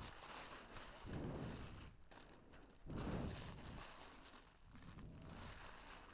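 Rustling and handling noise of a jacket and its plastic packaging being unpacked, coming in several bursts a second or two apart.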